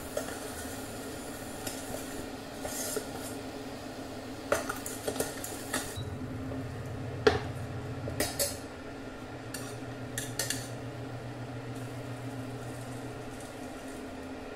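Stainless steel utensils clinking and knocking: a spoon against a saucepan of melted jaggery syrup, then a metal strainer and the pan as the syrup is strained for impurities. The sharpest clink comes about seven seconds in, over a steady low hum.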